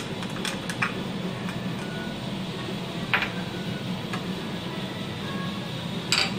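Steady background hum with a few light clicks and taps of a serving spoon against the dish as yogurt is spooned onto raw minced meat, the sharpest tap coming near the end.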